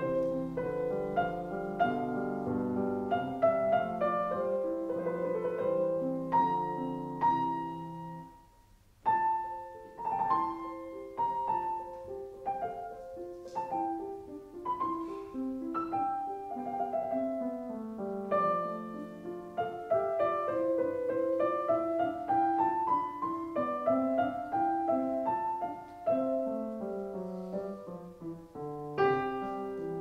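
Background piano music: a slow melody of single notes over chords. It breaks off briefly about eight seconds in and starts again.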